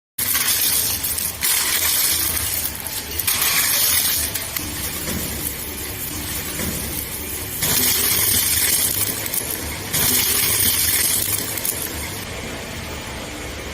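Medical waste shredder running and crushing pharmaceutical waste such as blister packs and medicine bottles: a steady motor hum with loud clattering, clinking crunches in four bursts a few seconds apart as batches are fed through the cutters.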